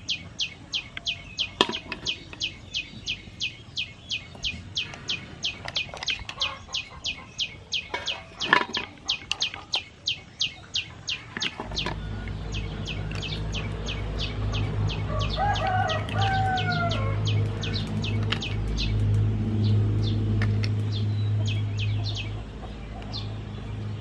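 A bird chirping over and over, a high short note about four times a second. Partway through, a low steady rumble comes in, and a second, lower call falls in pitch near the middle.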